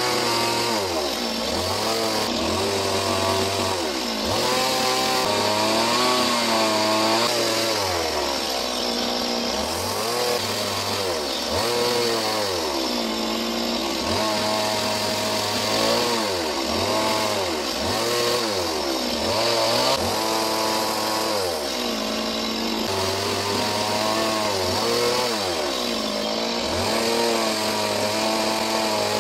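Chainsaw carving a wooden log, its engine revving up and dropping back over and over, the pitch rising and falling every second or two as the throttle is worked and the chain bites into the wood.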